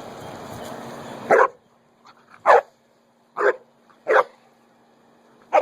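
A dog barking: five short, sharp barks spaced about a second apart. Before the first bark a steady rushing noise runs and then cuts off abruptly.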